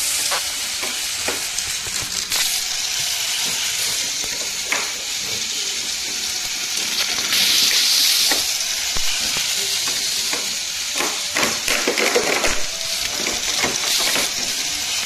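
Battery-powered toy train running on its plastic track: a steady rattling hiss from the motor and wheels with scattered clicks, louder about eight seconds in as the locomotive passes close.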